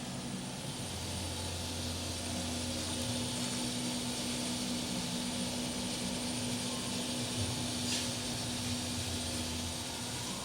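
Cincinnati Milacron Arrow 500 vertical machining center running under power, a steady mechanical hum with a constant low tone over a wash of fan-like noise.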